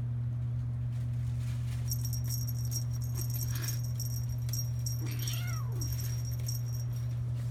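A kitten gives one short meow about five seconds in, while a small bell jingles rapidly from about two seconds in to near the end. A steady low hum runs underneath.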